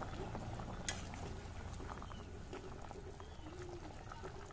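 Yogurt-based fish curry gravy bubbling at a boil in an iron kadai. There is a single light click about a second in.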